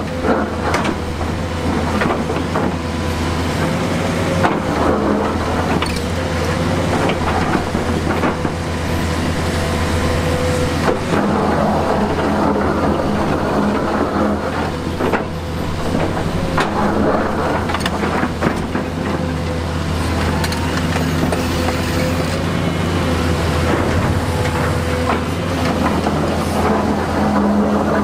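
Heavy earthmoving machinery running steadily with a low diesel drone and a faint steady whine, with scattered knocks and clatter of stone.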